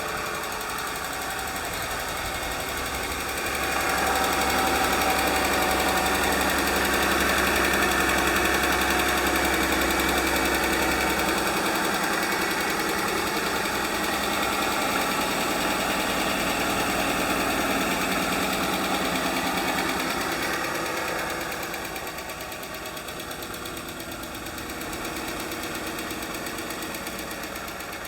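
2015 Jeep Wrangler's 3.6-litre V6 engine running steadily. It gets louder about three seconds in and eases back down near the end. The engine has a lifter tick, which the owner points out.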